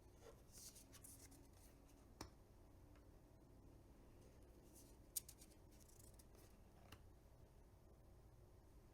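Faint handling of tarot cards: soft swishes of card sliding against card, a small tap about two seconds in and a sharper click about five seconds in.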